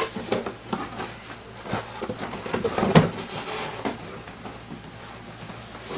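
Boxes and packaging being handled on a tabletop: an irregular run of knocks, clicks and rustles, with the loudest knock about three seconds in.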